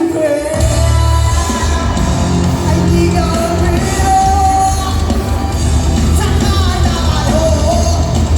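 Live rock band playing with a lead singer; after a short break the bass and drums come back in heavily about half a second in, under the sung melody.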